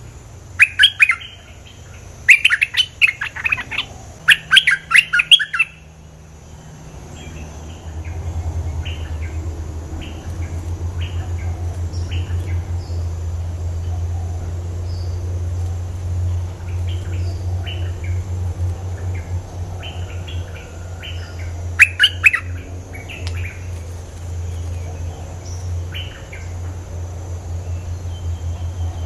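Caged decoy bulbul singing: loud clusters of quick, chattering song phrases in the first six seconds and again a little past twenty seconds, with softer short calls in between. A steady low rumble sets in about seven seconds in.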